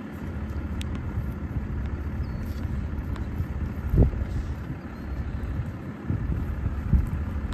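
Low rumble of wind buffeting the microphone, with a vehicle's engine running, heard from the open window of the vehicle. Two stronger buffets come about four seconds in and near the end.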